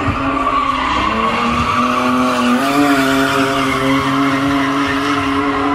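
A car drifting: its engine is held at high revs at a steady pitch that steps up slightly about halfway through, with the tyres squealing as they slide.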